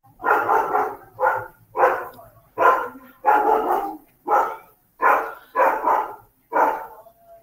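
A dog barking again and again, about nine loud barks roughly a second apart.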